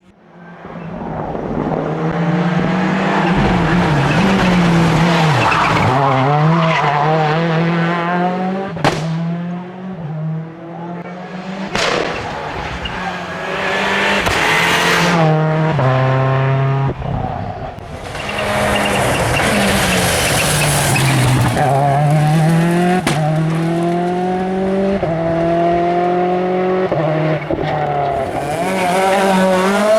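Seat Córdoba WRC rally car's turbocharged four-cylinder engine driven hard, its pitch rising and falling again and again through gear changes. A few sharp cracks sound among the runs.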